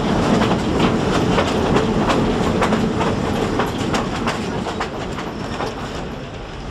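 Passenger train rolling along the track, heard from aboard: a steady rumble with irregular clacks and rattles from the wheels and cars, easing off a little near the end.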